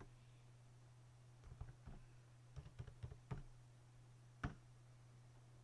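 Computer keyboard being typed on, faint: short runs of key clicks, then one louder single click about four and a half seconds in, over a steady low hum.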